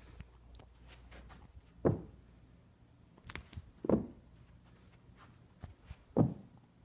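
Bengal kittens landing on carpet after leaping at a feather wand toy: three soft thumps about two seconds apart, with faint ticks and rustles between.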